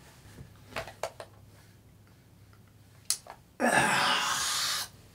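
A few faint clicks and rustles from a man shifting under a blanket, a sharp click about three seconds in, then a loud, breathy rush of breath from him lasting just over a second.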